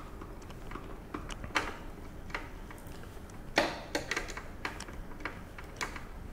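A screwdriver tightening a lamp-holding screw in the plastic housing of an Epson Home Cinema 2150 projector: irregular small clicks and ticks, with louder knocks about a second and a half in and again about three and a half seconds in.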